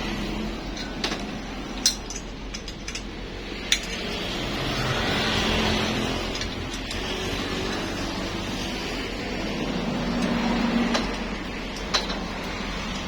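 A few sharp metallic clinks of tools and parts over a steady background hum, while a motorcycle engine is being put together by hand.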